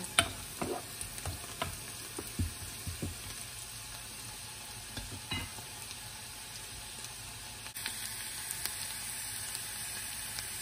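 Garlic, shiitake mushrooms and lemon zest sizzling in butter in a pan, a steady hiss that grows a little louder near the end. A utensil stirring them clicks against the pan several times in the first few seconds and once more midway.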